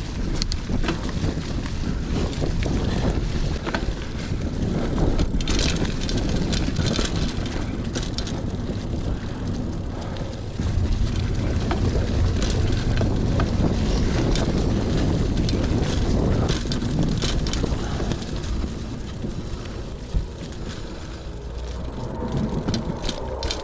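Mountain bike riding along a dirt trail: steady wind buffeting on the microphone and tyre rumble, with scattered clicks and rattles from the hardtail bike over bumps.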